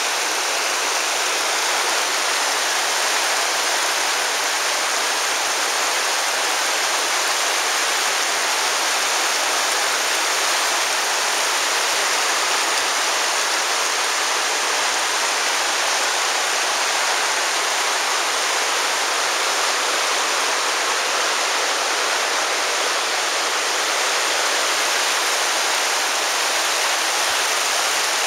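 Virgin River rushing and splashing over rocks, a steady, even roar of running water.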